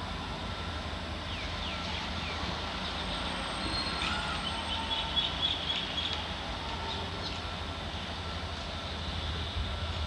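Distant WDG-4 diesel locomotive approaching, a low steady rumble that grows slightly louder about halfway through, with a few faint high chirps over it.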